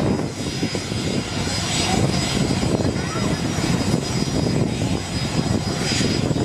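Gulfstream G-IV business jet's twin Rolls-Royce Tay turbofans running at taxi power: a steady rumble with a thin high whine over it.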